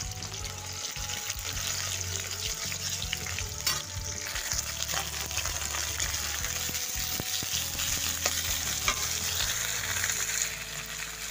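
Pieces of pork sizzling and crackling in hot oil in a wok, stirred with a metal spatula that scrapes and taps against the pan now and then.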